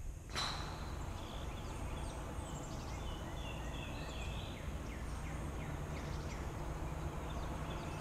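Birds calling: a scatter of short chirps and quick falling notes over a steady low outdoor rumble.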